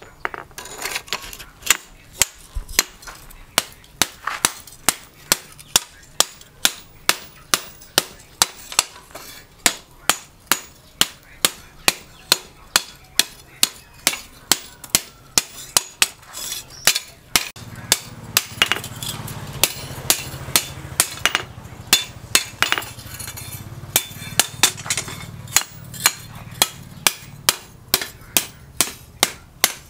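Blacksmith's hand hammer forging hot billhook steel on a steel anvil: an even run of blows, about two a second, each a sharp metallic clang with a short ring. A low hum sounds under the blows from about 18 to 26 seconds in.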